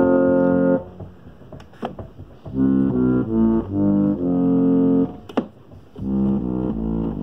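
Chicago Cottage model 555 reed pump organ from the 1890s playing: a held chord that cuts off about a second in, then after a short pause a run of changing chords. A few sharp clicks fall in the pauses.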